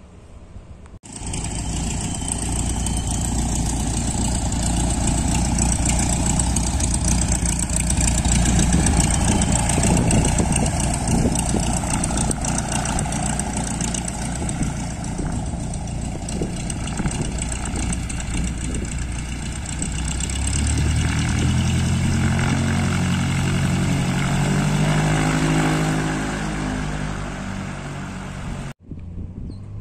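Single-engine Cessna training plane's piston engine and propeller running as it taxis close by. The sound cuts in abruptly about a second in, and the engine note climbs and then holds from about twenty seconds in.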